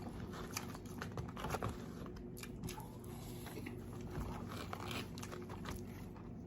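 Close-miked eating: a person biting and chewing food, with many small irregular clicks and crunches.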